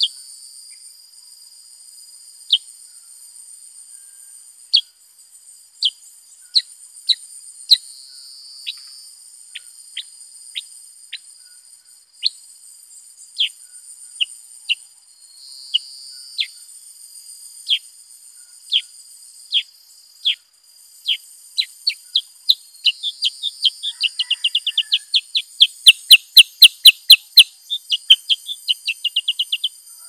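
Black-headed bulbul calling: short, sharp, downward-sliding chip notes at irregular intervals that speed up near the end into a fast run of about four notes a second, with a few sharp clicks among them. A steady high drone runs underneath.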